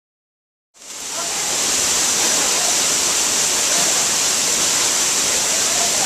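Waterfall's steady rush of falling water, cutting in suddenly under a second in after dead silence.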